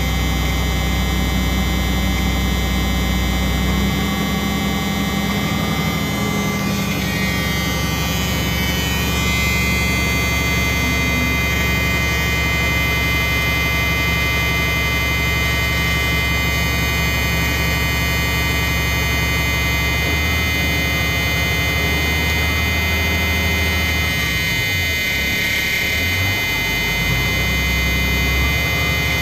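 School bus engine running with the throttle held up a little to build air pressure, its note shifting a few times. Over it the steady, high low-air warning buzzer sounds throughout, the sign that the air tanks are still below about 60 psi.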